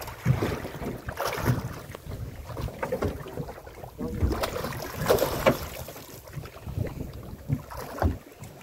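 Wind buffeting the microphone aboard a small boat at sea, with irregular knocks and bumps.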